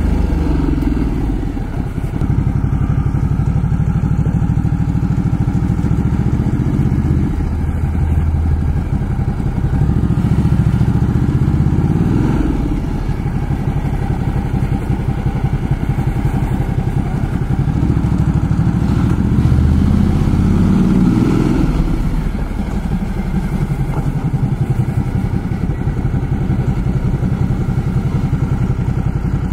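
Ducati Multistrada's V-twin engine running at low speed. The revs rise and fall back twice, about ten and eighteen seconds in.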